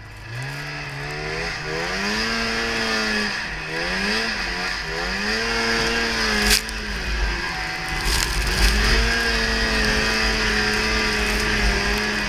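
Polaris Indy Trail 500 snowmobile's two-stroke engine running under throttle. It revs up sharply just after the start, sags and climbs again a few times, then holds high revs. A single sharp knock comes about six and a half seconds in.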